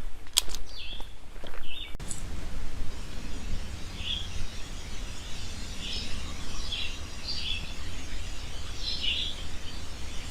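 Outdoor birds calling: short, high chirps every second or so, over a steady hiss and low rumble. In the first two seconds there are a few sharp clicks.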